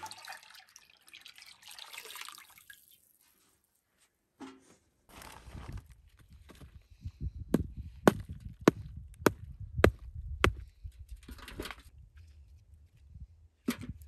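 Milk poured from a metal bucket into a large metal basin, a splashing pour that stops a few seconds in. Then wind rumbling on the microphone and six sharp knocks about half a second apart: a hand tool striking packed, dried dung to break off lumps for a metal bucket.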